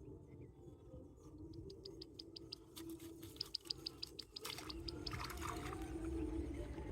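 Two quick runs of short ticks, about eight a second, then water splashing in the second half, louder than before.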